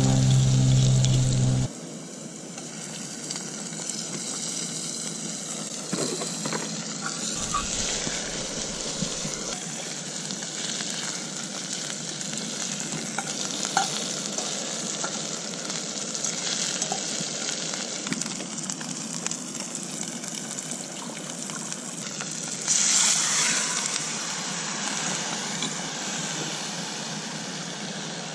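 Food frying in a pan: a steady sizzle with a few light clicks, and a louder surge of sizzling about three-quarters of the way through that dies back over a couple of seconds. A low steady hum cuts off about two seconds in.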